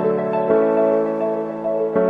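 Background music: soft, slow piano-led instrumental with sustained notes.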